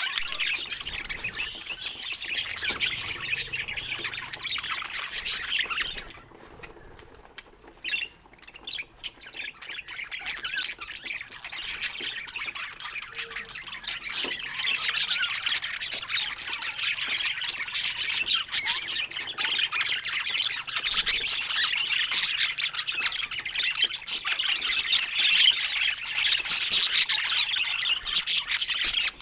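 Budgerigars chattering, with many quick calls close together. The calling drops off for a short lull about six seconds in and picks up again around ten seconds.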